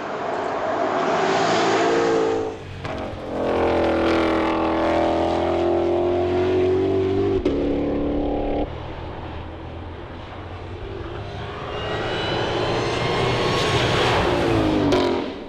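The Mustang GTD's 5.2-liter supercharged V8 running hard at racing speed, revving up through the gears with the pitch climbing and holding, in several shots cut together. Near the end it accelerates toward the listener with rising pitch, then the pitch drops as it passes.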